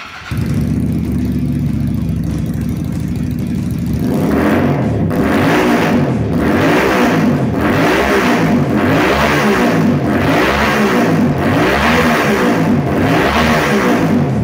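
WMoto Morbius motorcycle engine and exhaust idling steadily, then blipped about seven times in a row from about four seconds in, each rev rising and dropping back roughly every second and a half.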